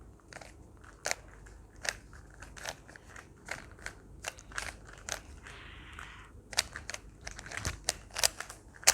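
Rubik's Cubes being twisted fast by hand, their plastic layers clicking and snapping at an uneven pace, with a short rustle a little after midway.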